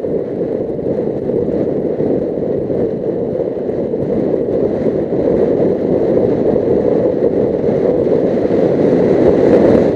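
Suzuki GS500E motorcycle on the move, heard from a microphone inside the rider's helmet: a steady rush of wind and engine noise that grows slightly louder toward the end.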